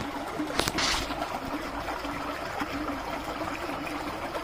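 Steady trickling of pond water at the bank, with one short, sharp noisy burst about half a second in.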